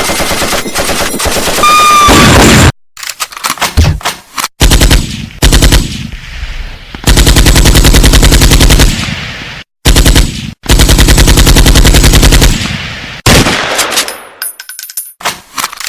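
Machine-gun sound effects: several long bursts of rapid automatic gunfire, one clip after another, each starting and stopping abruptly, some with a short fading echo.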